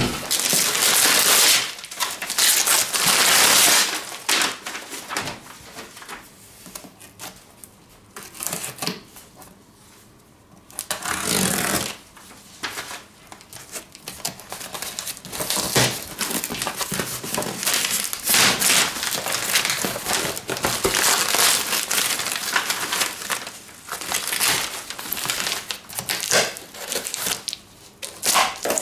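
Gift wrapping paper being torn off a box and crumpled by hand, in crackling, rustling bursts. There is a quieter lull of a few seconds about a third of the way through.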